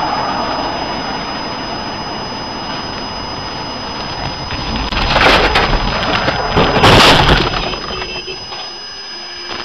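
Car crash heard from a dash cam inside the car: steady road noise, then two loud, harsh bursts of impact and scraping noise about five and seven seconds in.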